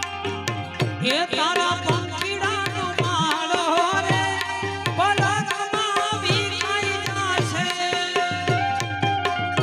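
Gujarati song music: tabla keeping a steady rhythm under a melody line that bends up and down in pitch.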